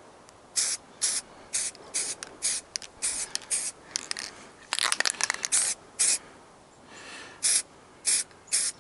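Aerosol can of spray paint hissing in a long series of short, quick bursts, with a denser run of back-to-back sprays around the middle, as a rifle's barrel is given another coat.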